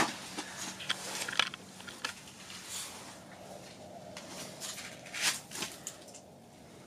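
Scattered soft clicks and rustles of a small ice-fishing rod, reel and line being handled at the hole, a few sharper ticks near the start and again about five seconds in.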